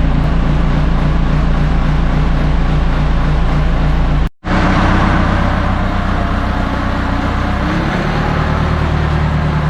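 Diesel engine of a telehandler running steadily, with a deep, even hum. The sound breaks off for a moment about four seconds in, then the engine note rises slightly near the end.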